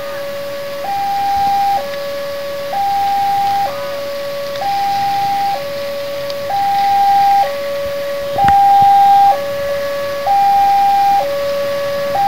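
Railway level-crossing warning alarm sounding a steady two-tone signal, switching between a lower and a higher tone about once a second. A single sharp click comes a little past the middle.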